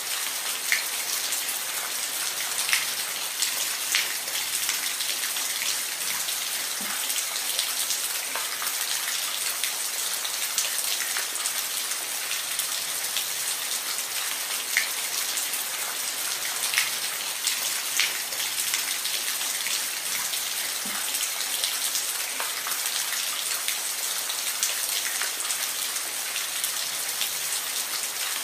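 Steady rain falling, a dense hiss with occasional louder single drops tapping close by.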